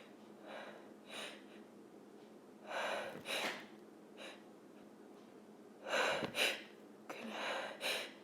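A woman's sharp, gasping breaths as a sneeze builds, several short catches of breath with the loudest pairs about three and six seconds in.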